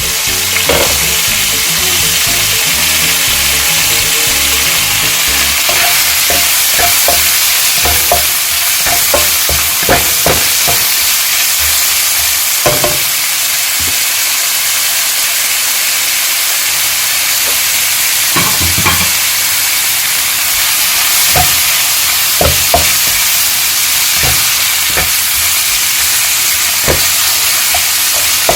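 Chopped bacon and garlic sizzling steadily in hot oil in a frying pan, with a spatula knocking and scraping against the pan now and then as it is stirred, frying until the bacon turns crisp.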